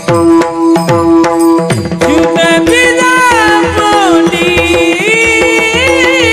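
Varkari kirtan music: mridang drum strokes over a steady held note. From about two seconds in, a voice sings a long, ornamented line of an abhang.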